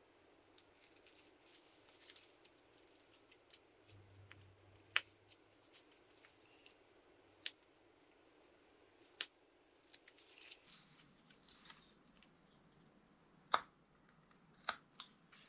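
Carving knife cutting notches into a small wooden fir-tree figure: quiet scraping strokes of the blade with a few sharp clicks at irregular intervals as cuts go through.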